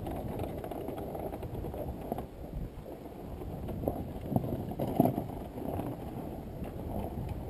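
Dirt bike riding a rough trail: a steady low rumble of engine and ground noise, broken by several thumps, the loudest about five seconds in.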